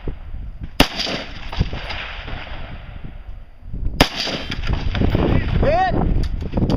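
Two rifle shots, about three seconds apart, each a single sharp crack.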